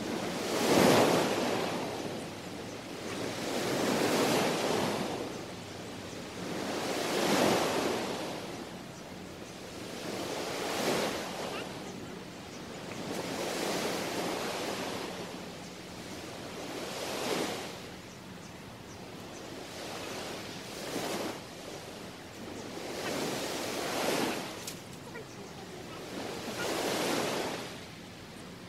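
Small waves breaking and washing up on a sandy beach, each one swelling and fading in a steady rhythm about every three seconds.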